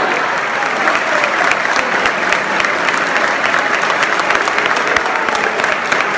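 A large crowd applauding steadily, a dense, unbroken clatter of many hands clapping.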